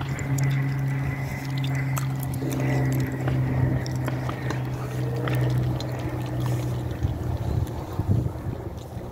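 Small motor running with a steady hum and a faint high whine, with light rattling clicks; the hum fades out about seven seconds in.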